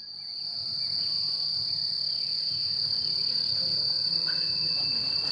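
Insects trilling without a break on one steady high-pitched note.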